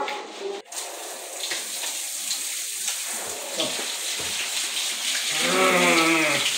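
Water running from a wall tap, pouring over a soapy dog being rinsed and splashing on the tiled floor, as a steady hiss that sets in about a second in. Near the end a voice gives one long wavering call.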